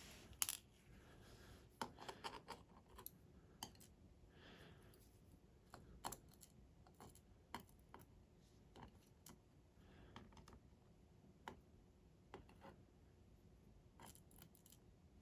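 Faint, scattered small metallic clicks and taps from taking apart a three-row dimple lock, as its pins and springs are worked out of their chambers. The sharpest click comes about half a second in, with lighter ones every second or two.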